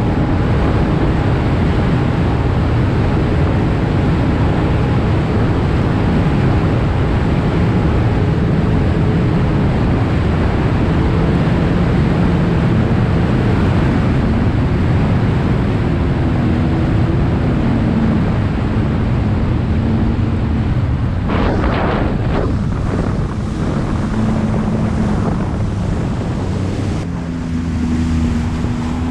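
Sea-Doo Fish Pro personal watercraft running under way: its 155 hp engine and jet drive hum steadily under wind rushing over the microphone and water hissing along the hull. The engine note shifts a few times with the throttle, and a brief choppy spell of splashing comes about two-thirds of the way through.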